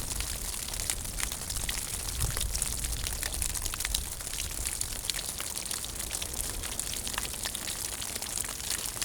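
Snow and ice melting off a rock in the sun: many small, irregular drips and crackles over a faint steady hiss.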